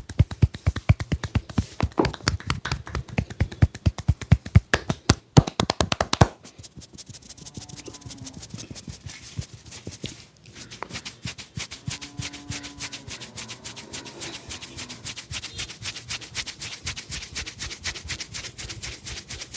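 Rapid, rhythmic hand slaps and taps of a massage on the head and body, several a second. They are heavy for about the first six seconds, then change abruptly to lighter, quicker patting.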